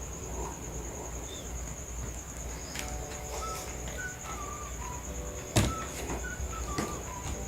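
Crickets chirring steadily in the background, with short faint chirping notes in the second half. A few clicks and one sharp knock a little over halfway through, the loudest sound.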